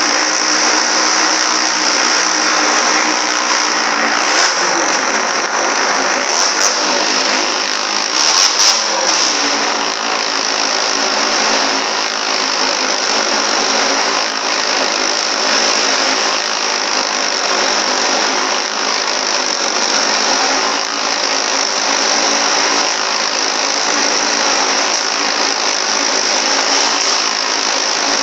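Motorcycle engine running loud and hard as the bike circles the wall of a wooden wall-of-death barrel, its pitch shifting briefly a few seconds in and again near the 9-second mark.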